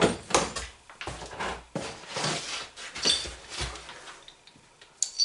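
Hands rummaging in a cardboard box, rustling and scraping the cardboard and packing as a metal clamp is lifted out, with a short sharp click near the end.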